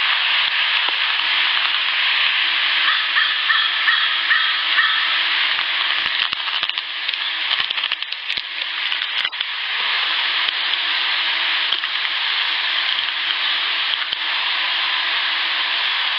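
Amplified field recording holding a steady, faint low buzz under heavy recorder hiss, with a few scattered clicks. The recordist counts the buzz among unknown insect sounds that resemble a house fly but are heard at night, when flies and bees don't fly.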